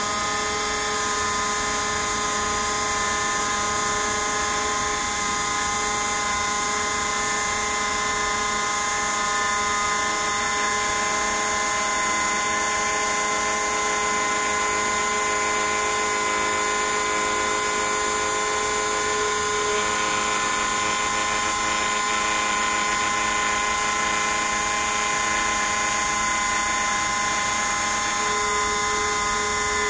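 Desktop CNC router carving, its spindle running with a steady high whine made of several tones; a few of the lower tones shift about two-thirds of the way through as the cut moves on.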